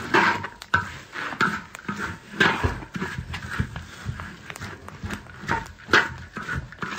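Two metal spatulas scraping and tossing a dry mix of peanuts and small seeds around a large wok, in irregular strokes about once or twice a second with a few sharp clicks of metal on the pan.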